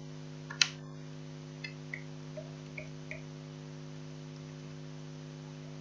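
Steady electrical mains hum in the recording, with a sharp click about half a second in and a few faint clicks over the next few seconds.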